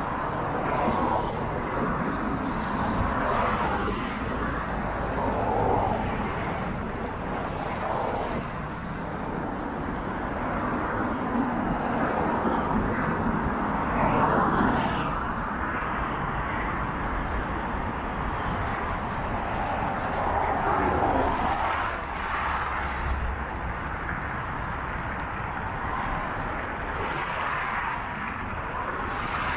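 City road traffic: cars and other vehicles driving past on a multi-lane road, their tyre and engine noise rising and falling as each one passes, over a steady low rumble.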